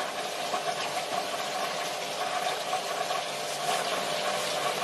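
Marine aquarium sump running: a steady rush of circulating water with a constant hum from the pump equipment.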